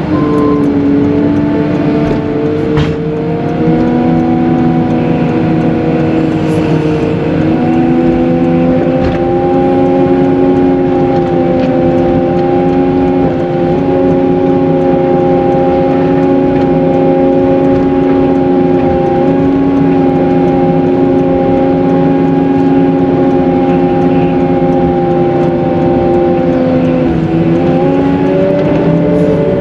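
Cat 906M compact wheel loader's diesel engine running steadily. Its pitch drops just after the start, rises again about seven seconds in and holds, then shifts again near the end.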